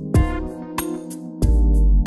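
Background music with a steady drum beat over held chords; a deep bass note comes in near the end.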